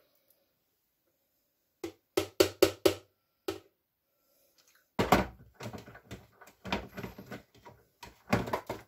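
Blender jug knocking against a glass and the blender base while a thick smoothie is poured out. About two seconds in come five quick knocks in about a second. About five seconds in there is a louder clunk, followed by irregular clatter.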